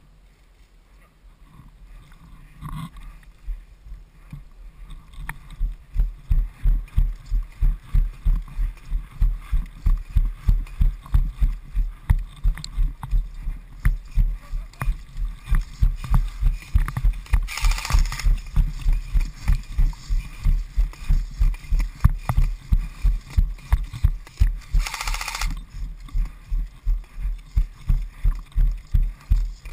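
Running footsteps on dry dirt, heard as heavy rhythmic thuds through a body-worn camera at about two and a half steps a second, starting about five seconds in after a quieter start. Two brief bursts of rustling hiss stand out, one past the middle and one near the end.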